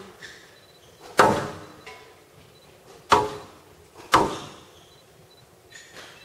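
Squash ball being struck hard by rackets and hitting the court walls during a rally: three sharp, echoing cracks, about a second in, about three seconds in, and a second after that.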